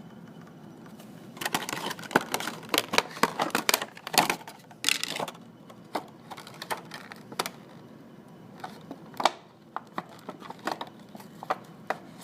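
Packaging being handled as a box is unpacked: crinkling and clicking of cardboard and plastic wrapping, a dense run of crinkles from about a second and a half in to about five seconds, then scattered single clicks.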